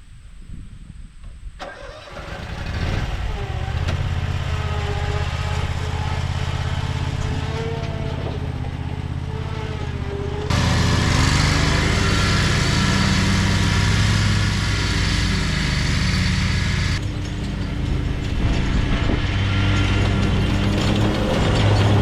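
Exmark X-Series zero-turn mower engine starting about a second and a half in, then running steadily. About halfway through it abruptly gets louder and stays that way.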